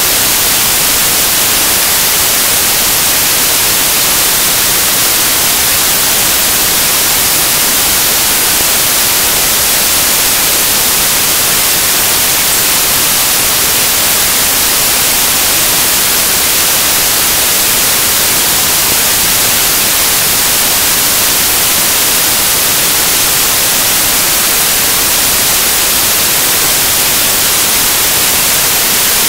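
Loud, steady hiss of static with no change, strongest in the high end, from a corrupted recording whose sound has broken down to noise.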